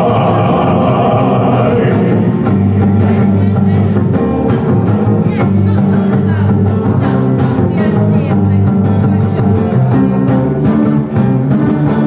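Acoustic guitar strummed in a steady rhythm, with a man singing over it at times, a held sung note in the first couple of seconds.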